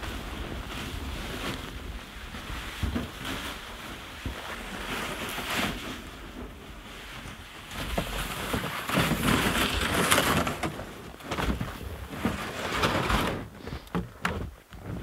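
Wind buffeting the microphone, with footsteps crunching through deep snow. The wind noise comes in irregular gusts and swells louder about halfway through.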